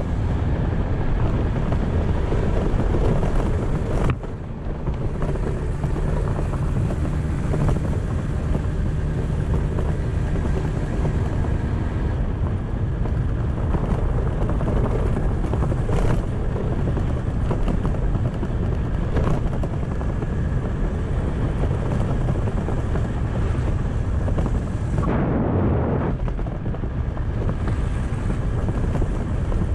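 Kymco's engine running steadily under way, mixed with wind noise on the microphone. The engine sound drops off briefly about four seconds in, then picks up again.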